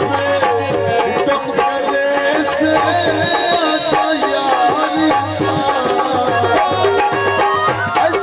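Live folk music: a harmonium playing a melody over a steady hand-drum beat.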